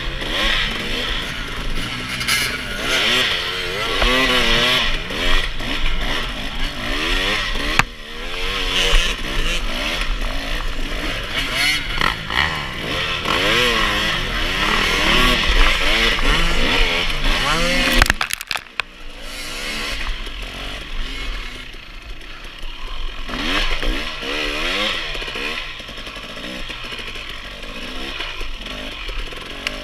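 Dirt bike engine being ridden hard, its pitch rising and falling over and over as the throttle opens and closes. The engine drops off briefly about two-thirds of the way through, then picks up again.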